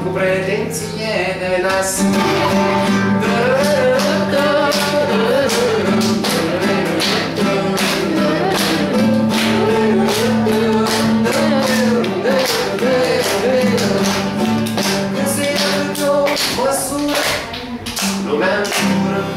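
A man singing a folk song to a strummed nylon-string classical guitar, the strums falling in a steady beat under a wavering vocal melody.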